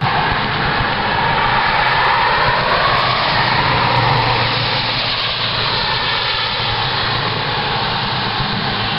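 A loud, steady engine-like roar with a low rumble underneath and a hissing band that slowly falls in pitch over the first few seconds. It cuts in abruptly.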